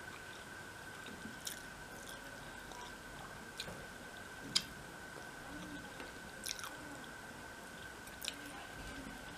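A person eating rice and fish curry by hand, with soft chewing and mouth sounds and a few short sharp clicks, the loudest about four and a half seconds in. A faint steady high whine sits underneath.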